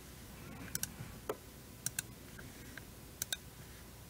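Scattered light clicks from a computer mouse and keyboard, some in quick pairs, over faint room hiss.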